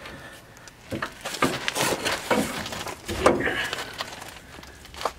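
A heavy steel coil spring being pried and turned into its seat on a van's front suspension, with irregular metal scraping and clanking, one sharp knock a little past three seconds in and a short ring after it.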